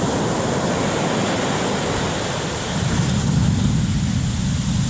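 Ocean surf rushing steadily, with a wave surging louder about three seconds in.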